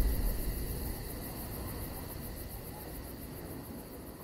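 Tail of the intro soundtrack fading out: a low rumble dies away early on under a fast, evenly pulsing high-pitched chirping that sounds like insects, all growing steadily fainter.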